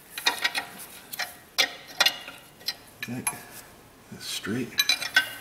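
Steel combination wrench clicking and clinking against a bolt on the transmission bellhousing: a handful of separate sharp metallic ticks, irregularly spaced. Two brief low murmurs from a voice come about three and four and a half seconds in.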